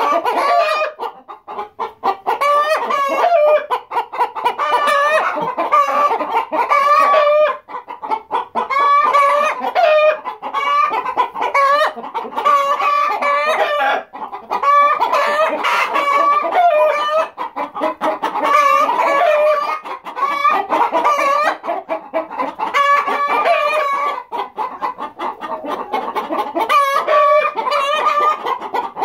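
A flock of hens and a rooster clucking and calling loudly without pause, many calls overlapping.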